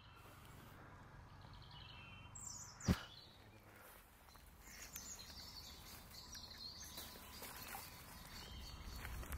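Faint birdsong over quiet outdoor background noise, with a single sharp knock about three seconds in.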